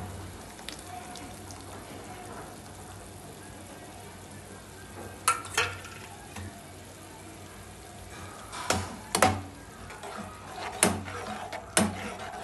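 Vegetable oats simmering in a steel pan with a steady bubbling hiss. In the second half, a perforated metal spoon stirring the curd into the mix knocks against the pan several times.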